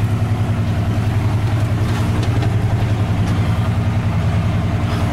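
A 1978 GMC four-wheel-drive pickup's engine running at low, steady revs, heard from inside the cab.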